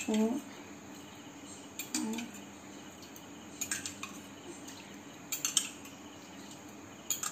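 Steel spoon clinking against a small glass cup as milk is scooped out a tablespoon at a time, a light clink every second or two over a faint steady hum.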